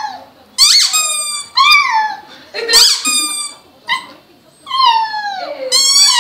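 A puppy howling along to a squeaky rubber toy being squeezed: a run of about five high, squeaky cries with short pauses between them, most sliding down in pitch, the longest a drawn-out falling wail about a second long.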